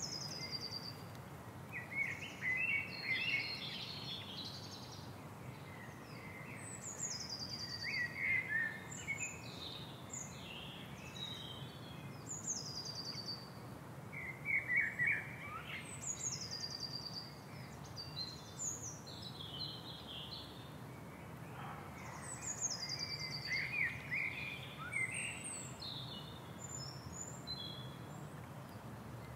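Birds singing and chirping, one bird repeating a short high phrase that falls in pitch every five to seven seconds, over a steady low background ambience.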